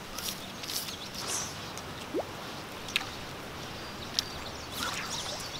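Riverbank outdoor ambience: a steady faint hiss with a few scattered small clicks and a short rising chirp about two seconds in.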